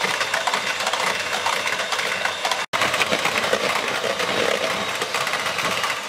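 Electric hand mixer running at speed, its beaters whipping cream with icing sugar into crème chantilly and clattering against the bowl, with a faint motor whine. The sound cuts out for an instant about two and a half seconds in.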